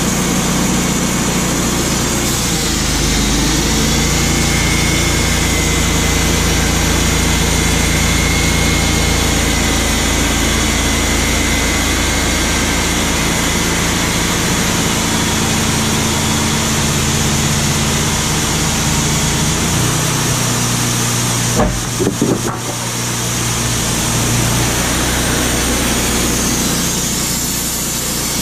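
Wood-Mizer LT35HD portable band sawmill running steadily under load, its band blade cutting through white pine boards. About three-quarters of the way through, a few knocks sound and the engine's pitch shifts.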